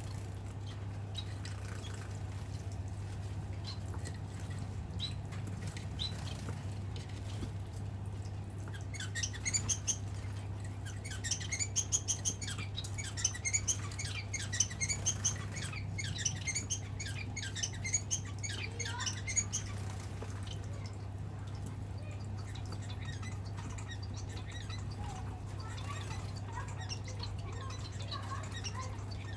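Society finches bathing: a flurry of quick wing-flapping splashes in water, starting about a third of the way in and stopping after about ten seconds. A steady low hum lies underneath.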